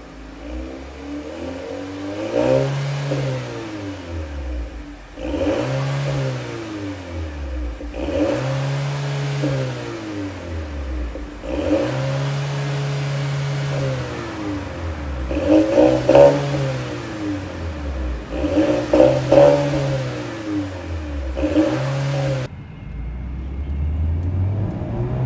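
A 2018 Mercedes-Benz A180's turbocharged four-cylinder engine revved seven times through an aftermarket rear exhaust section with single-exit tips each side; each rev climbs and drops back to idle, the fourth held longest and the fifth and sixth the loudest. Near the end the engine pulls the car away at low speed, heard from inside the cabin.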